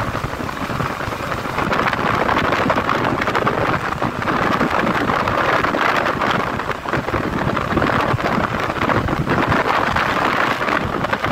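Wind rushing over the microphone of a motorcycle riding at highway speed, a loud, wavering rush that covers the engine and road noise.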